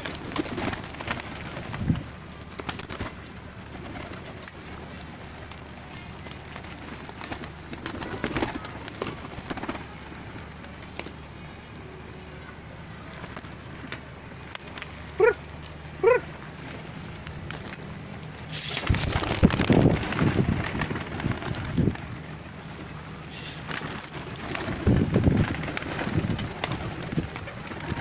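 A flock of domestic pigeons cooing as they feed on scattered grain, with rushing bursts of wing flapping as birds flutter up and land, loudest about two-thirds of the way through and again near the end.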